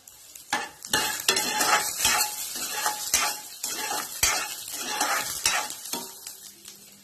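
Metal spoon stirring and scraping cashews, raisins, pistachios and dates frying in ghee in a metal kadai, with a light sizzle. The strokes come about two a second and die away near the end.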